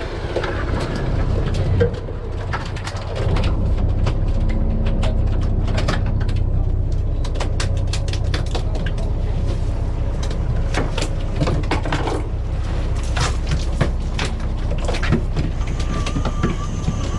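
Fishing boat's engine running with a steady low hum, which gets louder about three seconds in. Scattered sharp clicks and knocks sound throughout.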